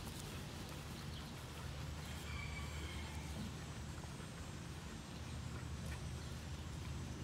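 Belted Galloway steer chewing a mouthful of hay, over a steady low rumble.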